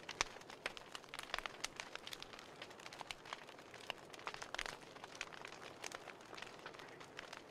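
A burning book crackling: paper pages catching and charring in small flames, giving irregular, close-set snaps and crinkles over a faint hiss.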